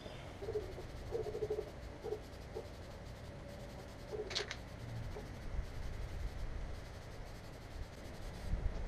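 Faint scratchy rubbing of a welded steel fan-mount frame being hand-sanded smooth, with a few short faint squeaks in the first half and one sharper scrape about four seconds in.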